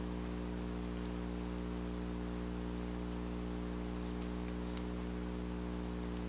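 Steady electrical mains hum with a hiss over it, and a few faint clicks about halfway through.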